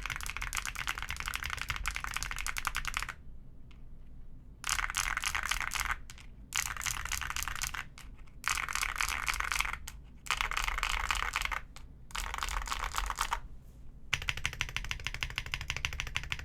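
Fast typing on a Heracles80 mechanical keyboard fitted with Azure Dragon V2 switches. The keystrokes come in quick runs of one to three seconds, broken by short pauses.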